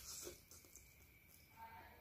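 Faint eating sounds of a person slurping instant fried noodles, with one short slurp right at the start.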